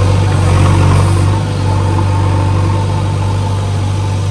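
Diesel engine of a JCB backhoe loader running steadily at idle close by, a low drone.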